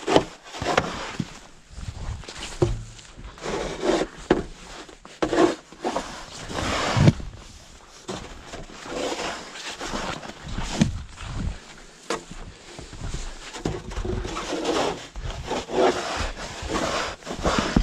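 Snow shovel being pushed through packed snow and scraped across wooden deck boards: a series of irregular scrapes and crunches, with footsteps crunching in the snow.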